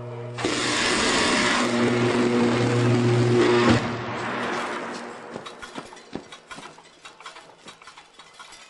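A high-voltage arc is drawn out by opening substation disconnect switch blades. It is a loud buzzing roar with a deep steady hum that cuts off a little under four seconds in, followed by fading, scattered crackles.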